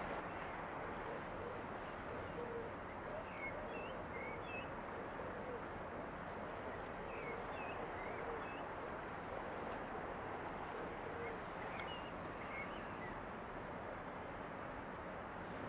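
Steady harbour ambience, an even wash of noise, with birds calling in short chirps in three small clusters.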